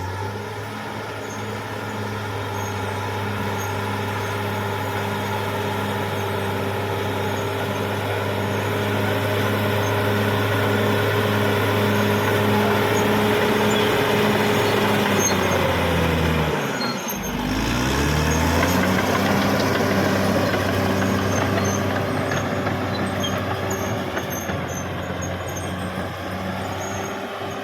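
Caterpillar D6R XL bulldozer's diesel engine running hard and steady. About two-thirds of the way through, its speed drops sharply, then climbs back up to a steady run.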